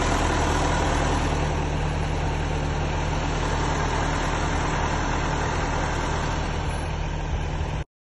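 Heavy farm-machinery engine idling steadily, a low even hum under a rushing noise, cutting off abruptly near the end.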